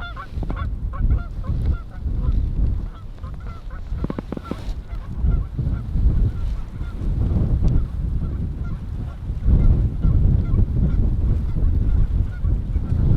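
Canada geese honking and clucking, many short calls at first and fewer later, over strong wind rumbling on the microphone.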